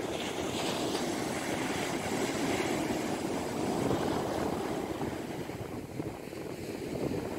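Sea surf breaking and washing on a beach, a steady noisy rush that swells through the first few seconds and eases off a little near the end.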